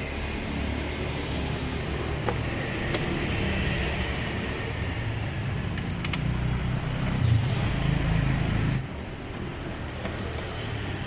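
A steady low rumble of an engine running nearby, with a few light clicks, getting louder and then dropping off abruptly about nine seconds in.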